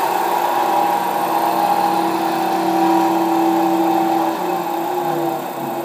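DoAll 36-inch vertical bandsaw running in low gear, a steady mechanical hum with a whine from its drive and moving blade. About four seconds in, the tone shifts a little and the level drops slightly while the variable-speed dial is being turned.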